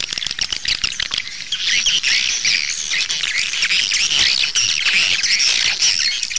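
Recorded swiftlet calls: a dense flock of high, rapid twittering chirps and ticks, thicker and more continuous from about a second and a half in. This is an 'outside' lure call played from a swiftlet house to draw passing swiftlets in.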